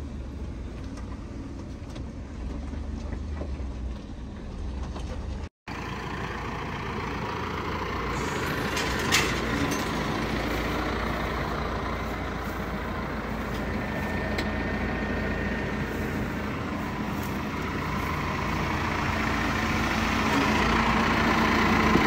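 Vehicle engine running: a low rumble heard from inside a moving vehicle, then after a brief break a steady engine idle with a faint hum that grows slowly louder toward the end. A single sharp click comes about nine seconds in.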